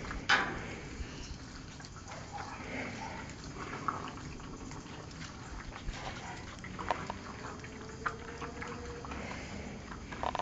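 Old tyme bulldog puppies moving about and making small animal noises, with scattered clicks and knocks, the loudest just after the start.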